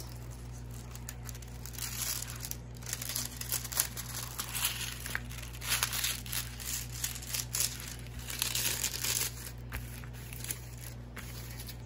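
Clear plastic film on a diamond painting canvas crinkling in irregular bursts as hands unfold and smooth it flat.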